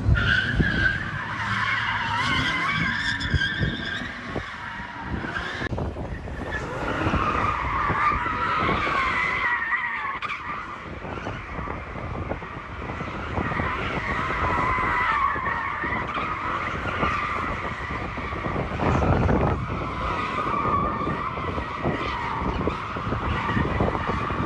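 Car tires squealing almost without break as cars do burnouts and donuts, the squeal wavering in pitch, with engines running underneath.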